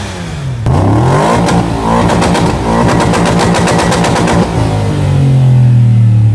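Aston Martin V8 Vantage's V8 engine being revved while stationary: the revs climb, are held high for about three and a half seconds, then drop back to a lower steady note that slowly settles.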